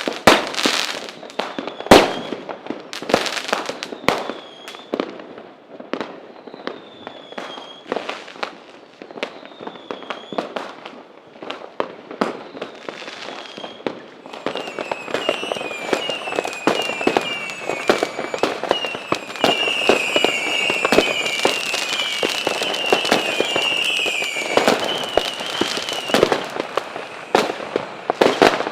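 Fireworks going off: repeated sharp bangs with crackling between them and a few short whistles. From about halfway, many whistles overlap in quick succession over a continuous crackle of pops. The loudest bangs come near the start.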